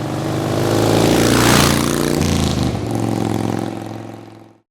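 Harley-Davidson Evolution V-twin engine running and being revved, swelling to its loudest about a second and a half in and then easing. It starts and cuts off suddenly.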